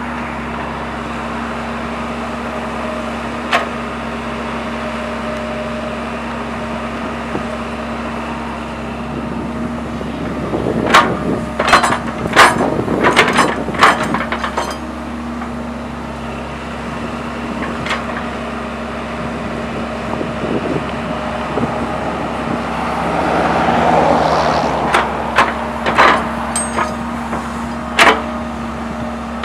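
Sumitomo hydraulic excavator's diesel engine running steadily while digging, with two spells of sharp clanks and knocks from the bucket and linkage, one around the middle and one near the end. A brief swell of noise comes shortly before the second spell.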